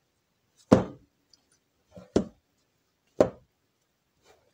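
A fist punching down risen bread dough in metal loaf pans, knocking the air out of it. There are three thumps about a second apart, with a lighter tap just before the second.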